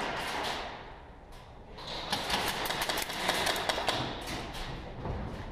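Airsoft rifles firing in rapid bursts, a dense rattle of sharp shots that lulls about a second in and then picks up again, busier, for a couple of seconds.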